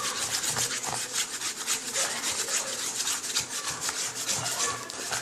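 A spoon stirring a glue, paint and laundry detergent slime mixture in a bowl, a rapid run of scraping strokes against the bowl.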